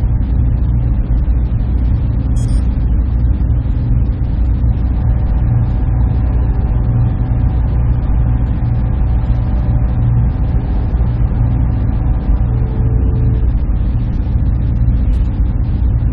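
Server room ambience: a steady, even hum and rush of machines and cooling fans, heaviest in the low range. A brief faint tick comes about two and a half seconds in.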